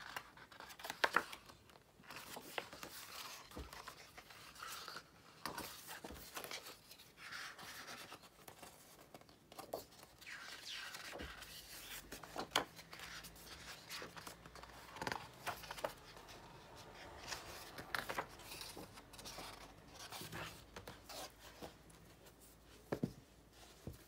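Pages of a hardcover photobook being turned by hand: repeated paper rustles and swishes with small clicks, and a sharper knock near the end as the book is closed.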